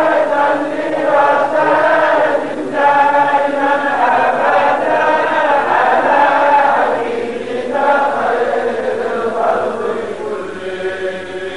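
Group of voices chanting an Arabic devotional poem in unison, drawing out a line in long held melodic notes, with a short dip about seven seconds in and trailing off near the end.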